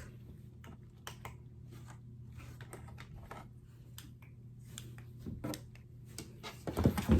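Light, scattered clicks and taps, like small objects being handled, over a low steady hum, with a louder cluster of knocks near the end.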